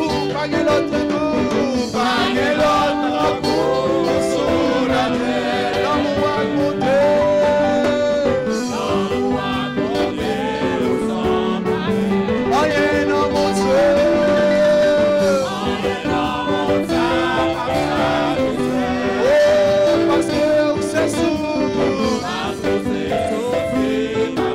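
Live church worship band playing: electric bass guitar, drum kit cymbals and hand percussion under a voice singing long held notes that glide at their ends.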